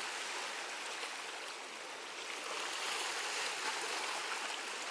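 Sea water washing steadily against a stone breakwater, an even hiss with no distinct splashes.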